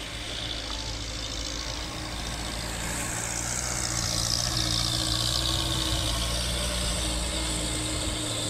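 Small truck's engine running, growing louder as it drives close over wet, muddy ground, with a steady hiss above the engine hum.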